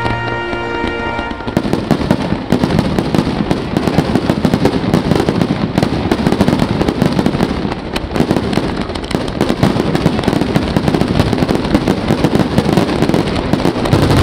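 Music with held notes for about a second and a half, then a cut to a fireworks display: a dense, continuous barrage of aerial shells bursting, with rapid bangs and crackle.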